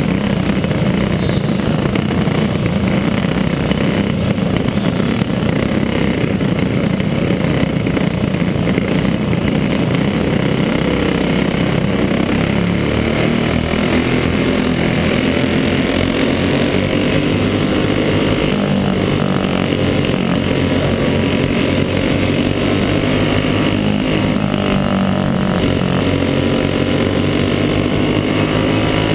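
Racing kart engine running hard, heard on board at speed, its pitch rising and falling as the driver comes on and off the throttle, with other karts' engines running close by in the pack.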